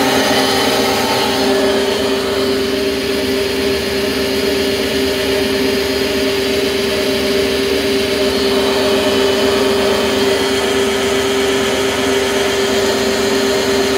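LDPE film recycling line machinery running steadily: the extruder and strand pelletizer give a loud, unbroken hum with one strong constant tone.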